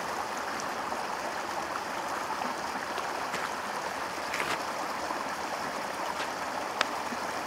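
A rocky burn rushing steadily over stones and small cascades, with a sharp click near the end.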